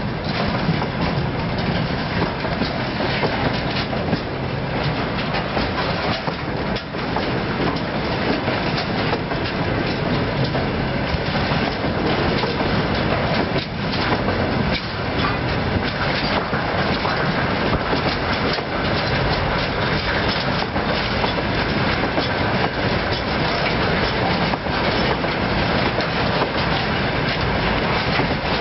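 Freight train of railway tank cars rolling past, a continuous rolling rumble with wheels clacking again and again over the rail joints.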